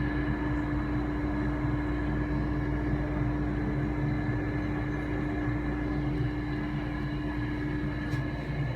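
Air conditioner running steadily in a Ferris wheel gondola cabin: an even hum with a constant tone over fan noise.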